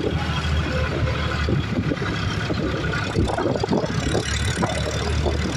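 Tractor's diesel engine running as it drives along: a steady low drone with rapid, uneven exhaust beats.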